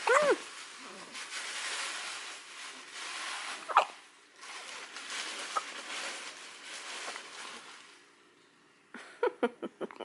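A newborn baby hiccuping: short, squeaky catches in the breath, one right at the start, another about four seconds in, and a quick run of small ones near the end, with a soft rustling hiss between them.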